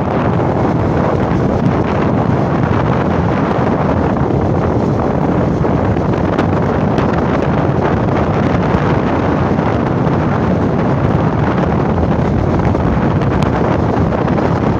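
Steady wind noise buffeting the microphone of a phone on a moving motorcycle, blending with the sound of the ride.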